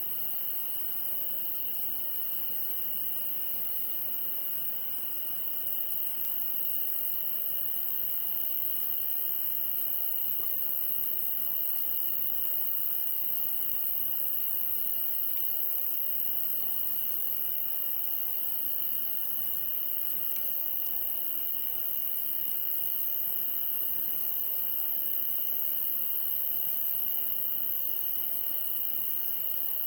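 Insects, most likely crickets, trilling steadily in chorus, with one chirp repeating about every two-thirds of a second.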